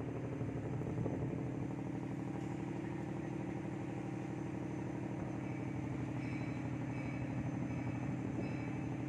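An engine running steadily at an even pitch, with faint short high tones coming and going in the second half.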